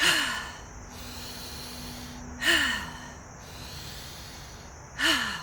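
A woman taking three deep breaths, each a loud breathy exhale with a sigh falling in pitch, about two and a half seconds apart.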